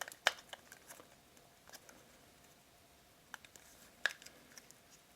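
Scattered small clicks and rustles of a watch strap being handled and tightened around a watch winder's cushion holder, with a sharper click about a quarter second in and another about four seconds in.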